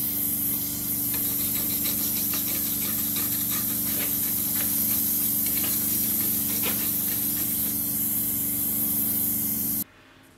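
Gas torch flame hissing steadily on a metal scabbard tip, with a brass wire brush scratching over the hot metal in short strokes. The sound cuts off abruptly near the end.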